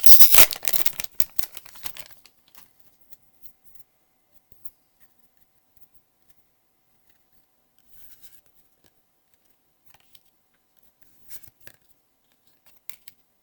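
Foil booster pack wrapper crinkling loudly as it is opened for about two seconds, then faint rustles and light taps of trading cards being handled.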